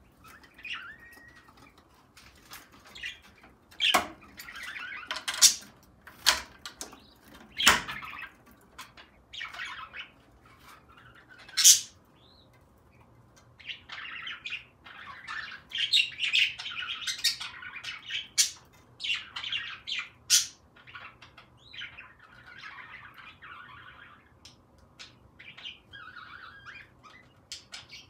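A flock of budgerigars chirping and chattering, busiest about halfway through. Several sharp, loud clicks stand out, most of them in the first eight seconds.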